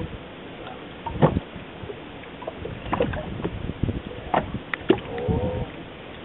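Water lapping and slapping against the hull of a small open wooden fishing boat, with scattered short knocks and splashes, and a brief pitched sound a little after five seconds.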